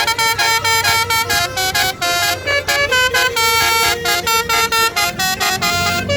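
A bus's multi-tone telolet horn (basuri type) played continuously as a fast tune, its loud held notes jumping from pitch to pitch several times a second. A deeper tone swells in underneath near the end.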